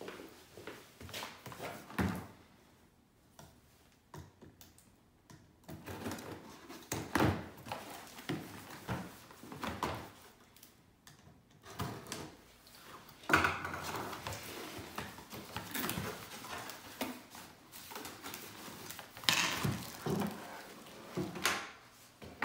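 Cardboard box being handled and opened on a wooden desk: scattered knocks and taps of the box against the desktop, a screwdriver scraping at the taped top, and bouts of rustling cardboard and plastic packaging as the bagged speakers are pulled out.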